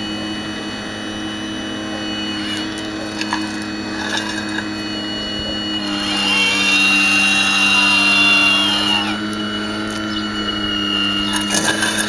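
Hydraulic pump of a radio-controlled Hitachi Zaxis 870 model excavator humming steadily. About six seconds in, a whine rises and falls over about three seconds and grows louder as the upper body and boom swing round.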